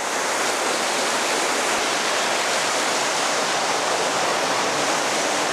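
Steady, unbroken rush of falling water from a mountain waterfall.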